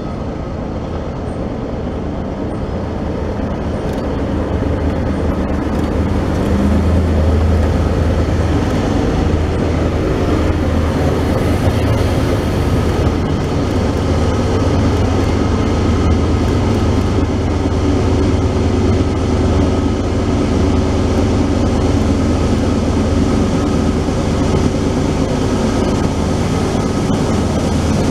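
Diesel-hauled freight train running past: a steady low engine drone that grows louder over the first several seconds and then holds.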